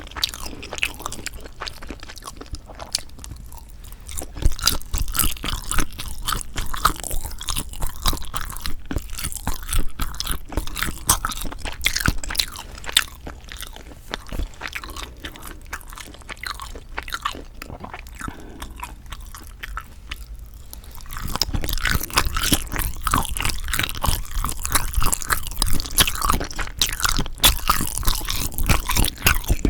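Close-miked chewing and biting of soondae (Korean blood sausage): a dense run of small, quick mouth clicks that grows louder about two-thirds of the way through.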